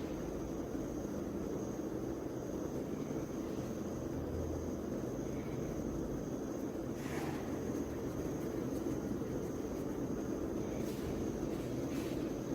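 Steady low background hum, with a few faint, brief hiss-like noises, one about seven seconds in and two near the end.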